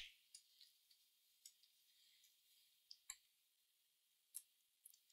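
Near silence, broken by about eight faint, scattered clicks of small tools handling parts on a laptop logic board, over a faint high hiss.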